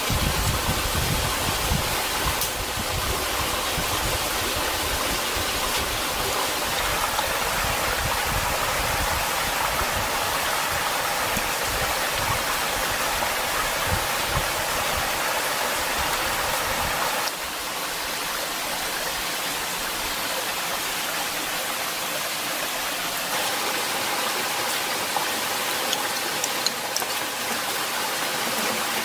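Steady rushing noise like running water, with low rumbling on the microphone through the first half; the level steps down abruptly a little past the middle.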